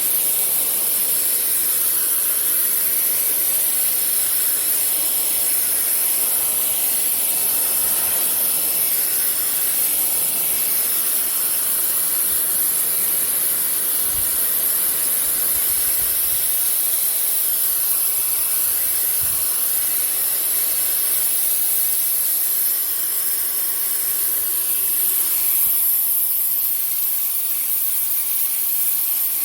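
Pressure washer spraying a high-pressure water jet onto a surface, a steady high-pitched hiss.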